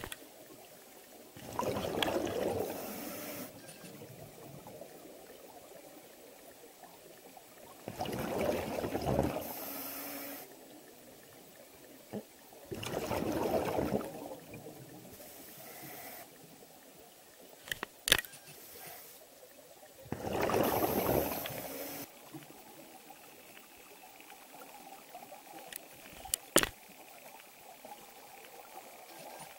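Scuba regulator exhaust bubbles heard underwater as a diver breathes out: four exhalations, each about two seconds long and some six seconds apart, with quieter breathing between them. A few sharp clicks sound near the middle and near the end.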